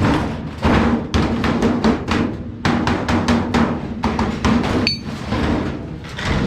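Hammer rapidly striking sheet metal, several sharp ringing blows a second with two brief pauses, over a steady metallic ring.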